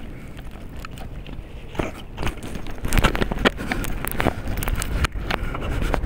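Wind buffeting the microphone, getting stronger about halfway, over scattered sharp clicks and knocks from handling a fishing rod and reel.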